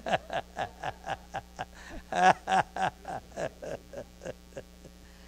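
A person laughing: a long run of quick "ha" pulses, each dropping in pitch, about four a second, trailing off a little before the end.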